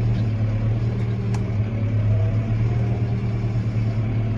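Tractor engine running steadily under way, heard from inside the cab as a constant low drone, with a single light click about a second and a half in.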